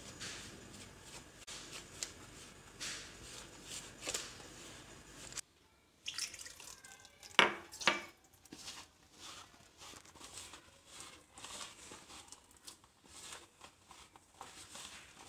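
Hand mixing and kneading soft, wet pizza dough of flour, egg, oil and water in a plastic tub: irregular squishing and scraping strokes, with the tub knocking on the floor, one sharp knock about seven seconds in. A faint steady hum behind it stops abruptly about five seconds in.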